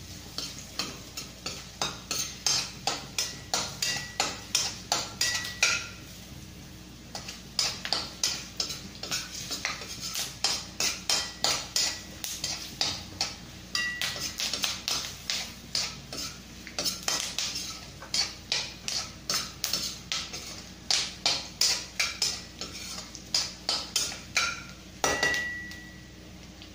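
Metal spoon knocking and scraping against a stainless-steel kadai in quick, regular strokes, about two to three a second, while peanuts are stirred and fried in tempering oil. The strokes pause briefly a couple of times, and a single ringing clank comes near the end.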